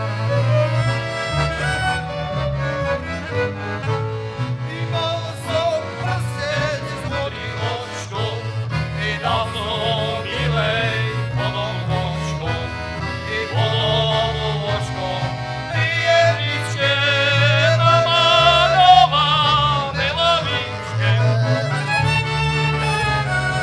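A Slovak folk band playing a tune live: fiddle, accordion and saxophone on the melody over a double bass playing the bass line.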